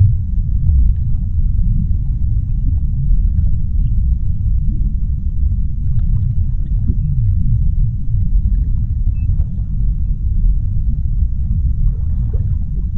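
Underwater ocean ambience: a steady deep rumble with faint scattered crackles and clicks above it.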